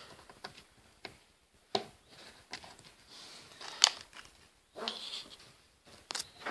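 Small plastic Lego pieces being handled, a series of sharp clicks with soft rustling between; the loudest click comes about four seconds in.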